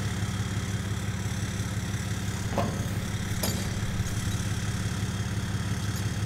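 A vehicle engine idling steadily, with two short light clicks around the middle.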